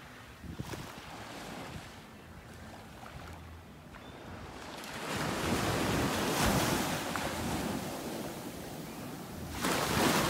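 Small waves washing up on a sandy beach, a wash building about halfway through and another swelling near the end, with wind buffeting the microphone.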